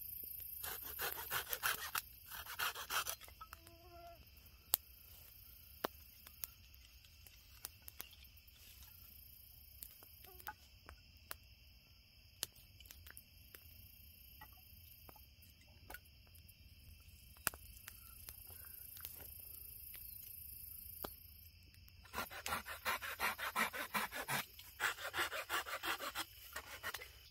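Campfire crackling with scattered snaps, over a steady high chorus of insects. Twice, about a second in and again near the end, a few seconds of rapid rasping strokes on a wooden stick, like a small saw working through a branch.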